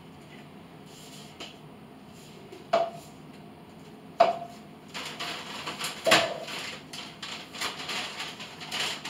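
Cups and containers being handled at a kitchen counter: two sharp knocks a couple of seconds apart as things are set down, then a busy run of clatter and rustling with another knock.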